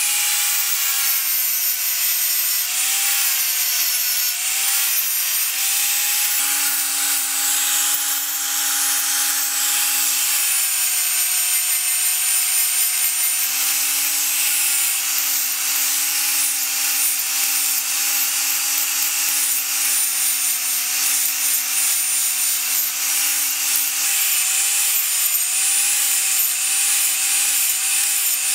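Angle grinder with an abrasive sanding disc running steadily while the disc is worked along a steel knife blade; its pitch wavers a little as it bites.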